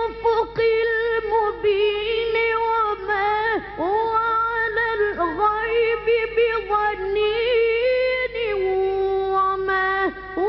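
High voice reciting the Quran in melodic tajweed style, holding long drawn-out notes with wavering ornaments and breaking briefly between phrases.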